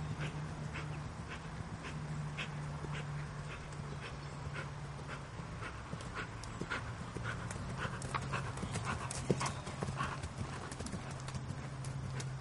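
Haflinger horse's hoofbeats under a rider on grass, a steady rhythm of about two strokes a second, over a steady low hum.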